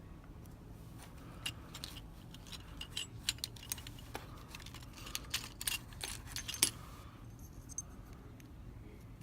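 Small metal clicks and clinks: a brass padlock and metal lock tools handled and tapped together during disassembly, in a dense irregular run that thins out about seven seconds in.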